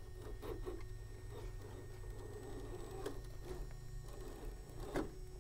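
Axial SCX10 III Gladiator RC crawler driving slowly on sandstone: a faint steady whine from its motor under small scattered clicks and scrapes of tyres and chassis on rock, with a sharper knock about five seconds in.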